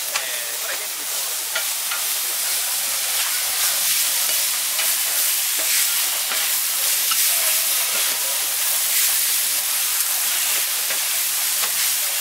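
Cubed beef sizzling on a hot flat-top griddle, with two metal spatulas scraping and clicking against the steel plate as the meat is tossed. A steady hiss runs throughout, broken by scattered sharp clicks from the spatulas.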